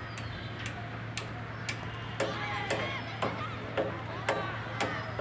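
Sharp clicks at a steady pace, about two a second, with voices calling out from about two seconds in.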